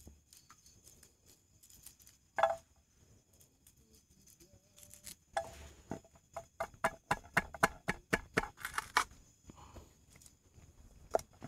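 Knife handle pounding shallots and chilies in a frying pan: a run of short knocks, about four a second, starting about five seconds in, with a few more near the end. A single knock comes about two seconds in.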